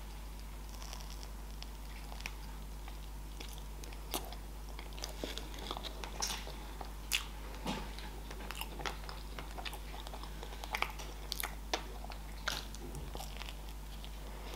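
A person biting into and chewing a raspberry tartlet with a pastry shell and cream topping: scattered small crackles and mouth clicks over a faint steady hum.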